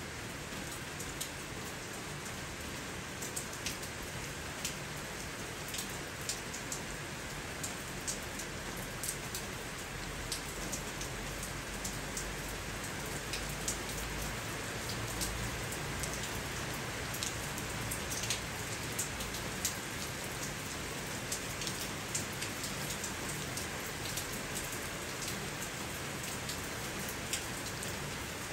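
Steady rain falling: an even hiss, with frequent sharp taps of drops landing close by.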